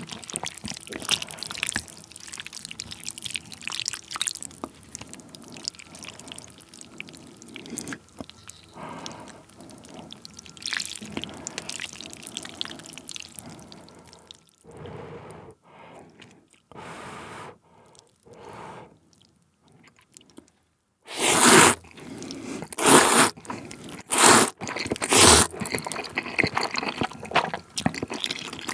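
Wet, close-miked sounds of noodles and seafood being stirred in a bowl of spicy jjamppong soup and lifted out with wooden chopsticks, with dripping and small clicks. About 21 seconds in come four loud noodle slurps in quick succession, followed by chewing.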